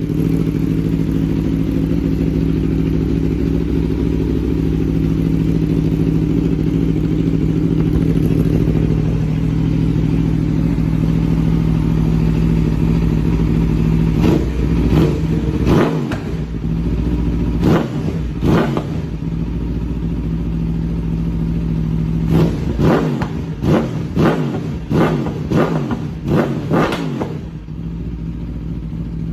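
Aprilia sport bike with an SC-Project aftermarket exhaust, idling steadily. About halfway through come a few throttle blips that rev up and drop back, then a quicker run of about eight blips near the end before it settles back to idle.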